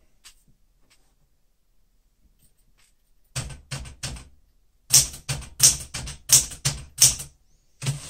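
Smith-Corona Galaxie Deluxe manual typewriter being typed on. After about three quiet seconds come quick runs of sharp keystrokes as the typebars strike the paper on the platen, with a short pause partway through.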